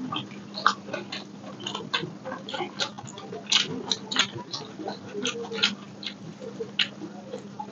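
Chewing and lip-smacking while eating egg omelette: irregular mouth clicks, several a second, over a faint steady hum.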